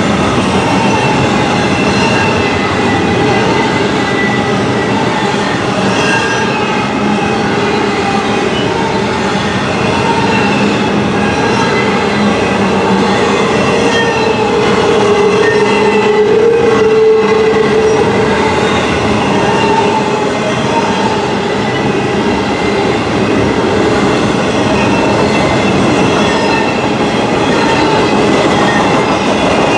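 Intermodal container train rolling past: a steady, loud noise of steel wheels on rail, with faint wavering wheel squeal.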